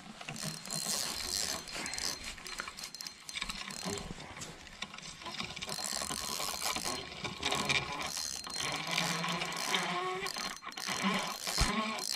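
Fishing reel being cranked, its gears clicking as line is reeled in.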